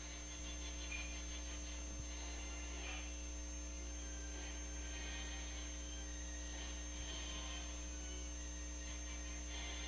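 Steady low electrical mains hum in the recording, with faint indistinct sounds in the upper range over it.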